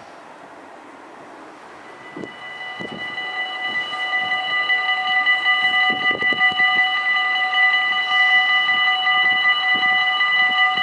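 Level-crossing warning bells of a Dutch automatic half-barrier crossing start ringing about two seconds in, a steady ringing that grows louder over the next few seconds and then holds. They signal that a train is approaching and the barriers are about to come down.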